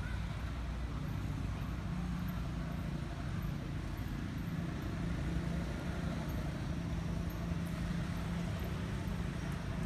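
Steady low mechanical hum of an engine running, unchanging throughout.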